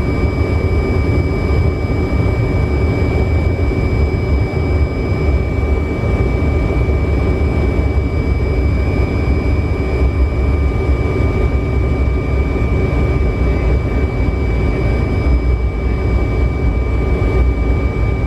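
Steady flight-deck noise of a Fokker 100 airliner in flight: a constant rush of airflow and engine rumble, strongest in the low end, with a thin steady high-pitched whine over it.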